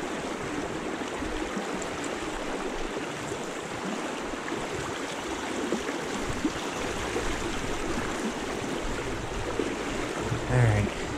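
Shallow river riffle rushing steadily over rocks, with a brief louder low sound near the end.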